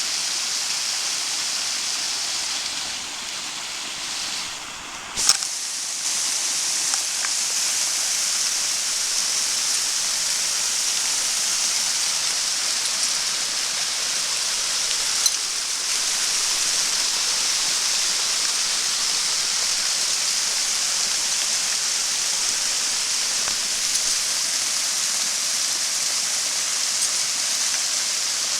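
Large waterfall, water falling and splashing in a steady, even hiss. A sharp knock comes about five seconds in and another about fifteen seconds in.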